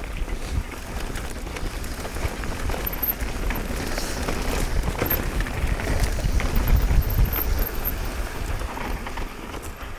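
Mountain bike rolling fast down a rough trail: continuous tyre noise with frequent knocks and rattles, over a low rumble that is loudest a little past the middle.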